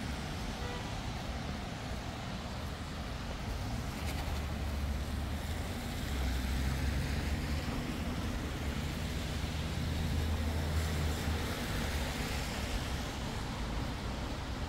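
Steady hiss of rain on a city street. A vehicle's low engine hum comes in about four seconds in, swells, and fades out a few seconds before the end.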